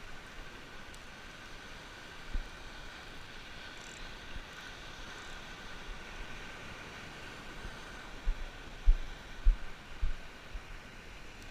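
Steady outdoor hiss, with short low thumps on the microphone once about two and a half seconds in and several times between eight and ten and a half seconds.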